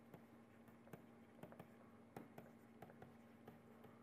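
Near silence: faint, irregular ticks of a stylus tapping and sliding on a pen tablet as a word is handwritten, over a faint steady low hum.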